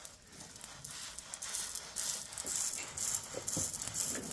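A cow being milked by hand: milk squirts into a pail in quick, rhythmic spurts, a few each second, growing stronger after about a second and a half.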